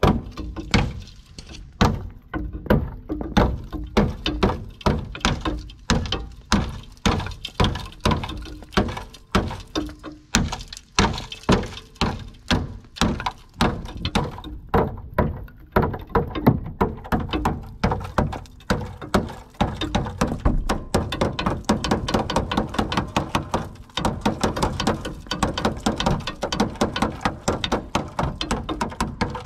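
Ball-peen hammer striking the rust-rotted steel frame of a Hummer H3 again and again, knocking off rotten metal to find how much of the frame is left. About two blows a second, coming quicker in the last third.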